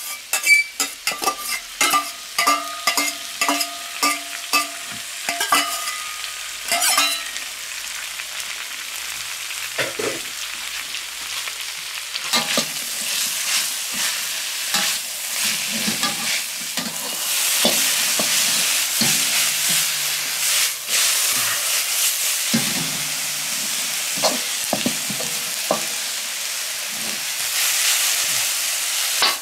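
Vegetables stir-frying in a steel wok. For the first several seconds a steel wok spatula clanks and scrapes against the wok, and the pan rings briefly after each strike. After that a steady sizzle of the vegetables in hot oil takes over and grows louder about halfway through, with occasional scrapes.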